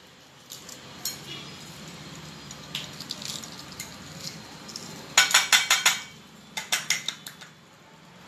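Hard-boiled eggs being cracked and peeled: scattered clicks and crackles of eggshell, with two runs of quick sharp taps a little past halfway as an egg is rapped to crack its shell.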